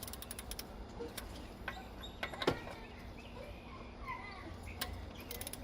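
A ratchet wrench clicking quickly for about half a second as a lug nut is turned, then scattered clicks and knocks of tools, and another short run of ratchet clicks near the end. Faint bird chirps in the background.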